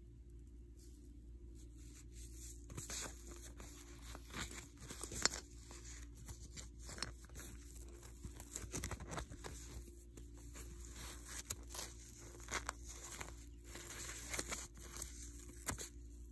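Handling noise: irregular rustling and crinkling with scattered sharp clicks, the sharpest about five seconds in.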